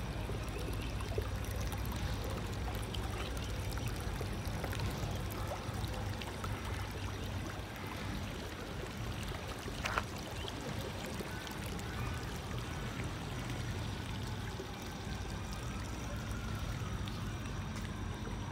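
Steady outdoor background noise: an even rushing hiss over a low rumble. There is one sharp click about ten seconds in, and a faint tone gliding up and then down near the end.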